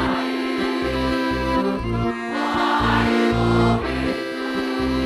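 Galician folk band playing an instrumental passage live: steady held melody and drone notes over a low, even drumbeat.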